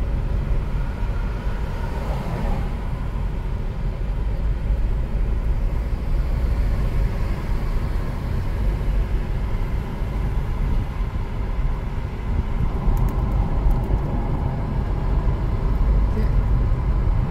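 Steady low road and engine rumble of a car driving along a city street, heard from inside the cabin.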